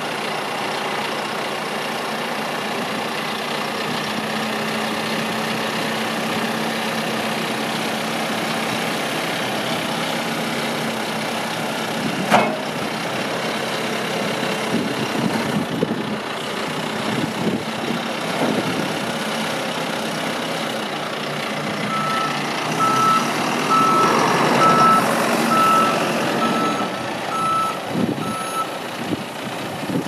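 John Deere 310SL backhoe loader's four-cylinder diesel running while the loader arm is worked, with a single sharp clank about twelve seconds in. Later the engine gets louder as the machine moves in reverse, and its backup alarm sounds a steady series of beeps.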